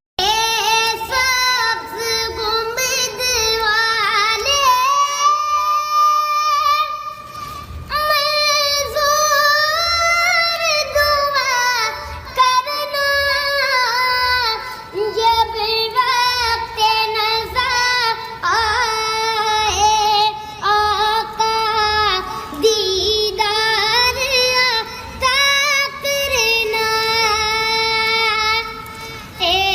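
A high solo voice singing an Islamic devotional song (hamd) in long held, ornamented notes that bend up and down, over a soft low beat about once a second.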